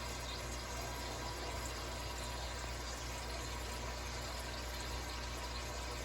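Steady running-water hiss with a low hum underneath, unchanging throughout.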